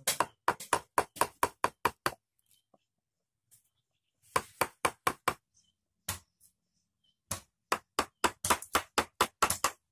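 A steel woodcarving chisel being struck to drive it into the end grain of an old house-frame timber block, hollowing out a wooden cup. It gives sharp knocks in three runs, about four a second, with short pauses, and the last run comes quicker.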